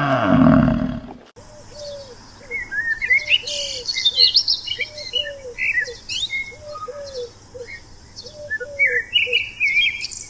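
A deep, drawn-out animal call ends about a second in. Then several birds sing and chirp together in high, quick notes over a lower call repeated in groups of three notes every second or so.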